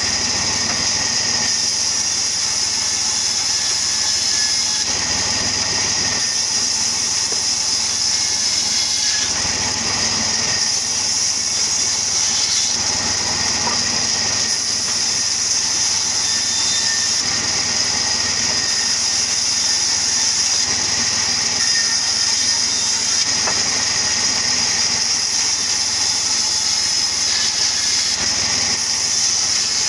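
Sawmill wood-cutting machine running steadily, a constant mechanical noise with a high, even hiss.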